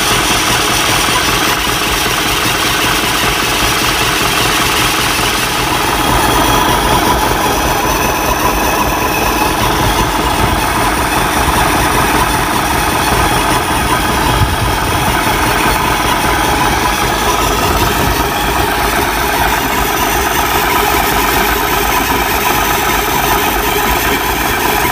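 Mahindra 475 tractor's diesel engine running steadily, heard close up while it powers a mounted sprayer.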